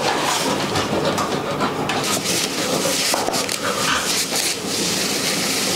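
Rottweiler in labour panting with its mouth open while stepping about on crumpled tissue paper, which rustles and crackles under its paws. The panting goes with the contractions of whelping.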